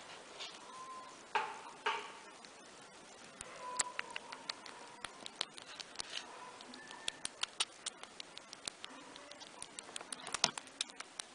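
Baby rabbits nibbling and chewing at food: a quick, irregular run of small crisp clicks, with two louder rustles about one and a half and two seconds in.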